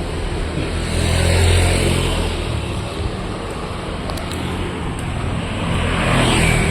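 Street traffic: motor vehicle engines running and passing, louder about a second in and again near the end.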